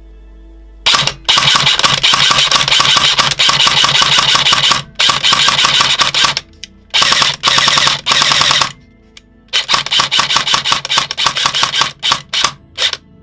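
Airsoft electric gun (an M4 with a V2 gearbox, its stock motor and mechanical trigger switch, on a 7.4 V LiPo) dry-firing on full auto, the gearbox cycling in long bursts of a few seconds, then a string of short bursts near the end. The bursts test how quickly it responds to the trigger.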